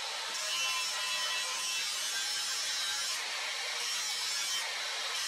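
Electric angle grinder with a flap disc grinding a steel machete blade: a steady grinding noise of abrasive on steel. The grind brightens and eases a little a few times as the disc is worked along the blade.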